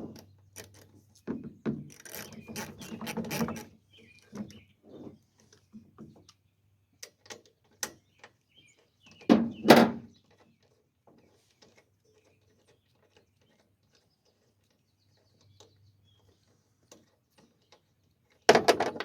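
A ratchet and spark plug socket clicking, with small metal tool clinks, as the spark plug is loosened and taken out of a push mower's Briggs & Stratton engine. The clicks come thickest early on, and there is a louder clattering knock about halfway through and another near the end.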